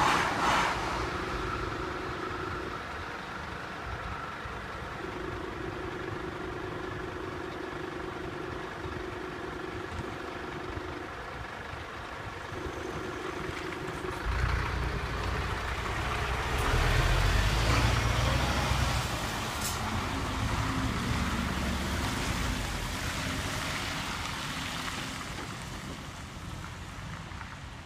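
Road traffic at a level crossing: cars and a box truck waiting with engines running, then pulling away over the crossing on a wet road. About halfway through, a loud low engine rumble and tyre hiss start, peak a few seconds later, then fade.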